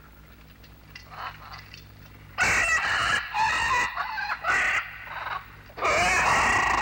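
Loud animal calls, several in a row starting about two and a half seconds in, the last one about a second long, over a faint low pulsing hum.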